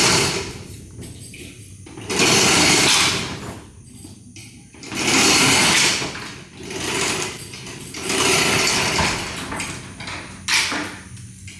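Something being opened with repeated strokes: about five rasping, rattling bursts, each roughly a second long, coming about every three seconds.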